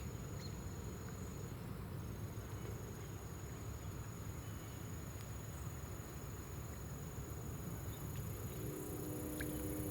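A thin, steady, high-pitched tone over a low rumbling background noise. Near the end, a few low steady tones join in.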